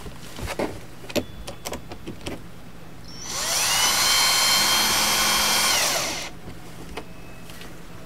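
A few light clicks and knocks, then a power drill spins up about three seconds in, runs steadily for about three seconds driving a small wood screw to fix a metal conduit strap, and winds down.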